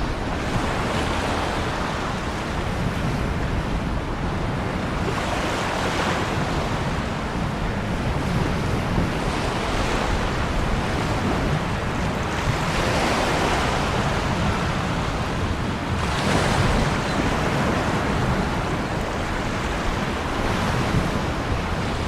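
Ocean waves breaking and washing on a shore in a steady, continuous surf, with a wave swelling up every few seconds.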